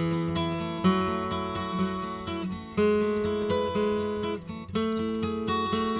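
Intro music: acoustic guitar picked and strummed, with notes struck every half second or so.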